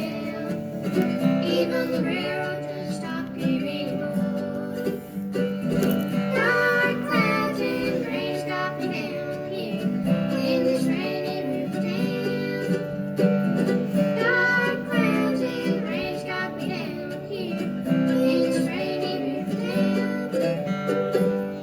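Bluegrass string band playing live, with acoustic guitar and other plucked strings carrying a steady tune and singing over it. The music drops away right at the end.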